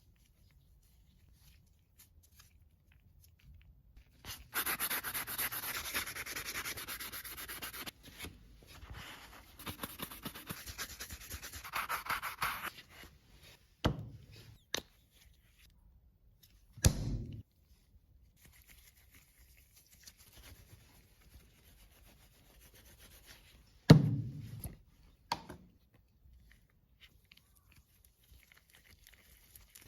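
Drive shaft parts being rubbed by hand in two scraping stretches of a few seconds each, in keeping with the outer joint parts being polished during an overhaul. Later come a few short, sharp knocks, the loudest about three-quarters of the way through.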